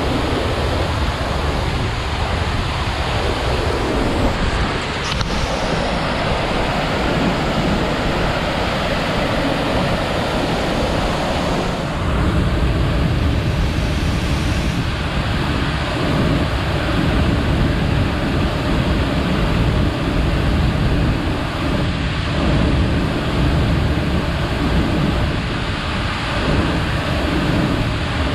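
Loud, steady rushing of a river in spate after a storm, with wind rumbling on the microphone.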